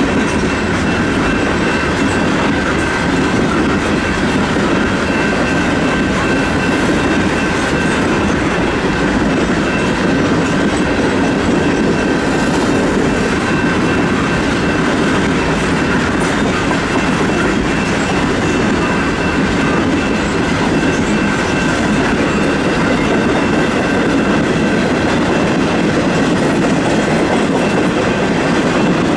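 Loaded freight cars of a ballast and rock train rolling steadily past at close range: continuous wheel-on-rail rumble and clatter, with a thin, steady, high wheel squeal over it.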